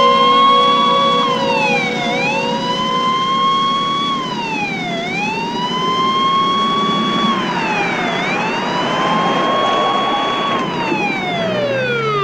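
Ambulance siren wailing, its pitch climbing slowly and dropping quickly about every three seconds, then winding down in one long falling glide near the end.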